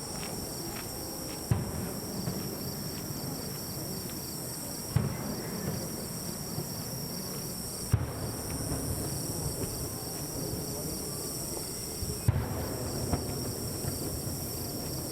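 Crickets or other insects chirping steadily in a high, pulsing chorus. About five short, dull thumps break through, spread out irregularly.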